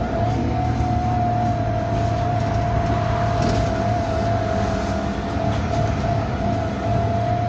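Bus 27244 on the move, heard from inside: a steady, slightly wavering high whine rides over the low drone of the engine. This whine is one of the weird noises the bus makes.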